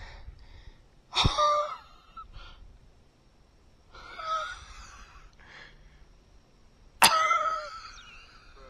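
A man's breathless gasps and wheezy, wordless exclamations, three of them a few seconds apart, the loudest about a second in and near the end. He is winded with excitement after landing a big bass.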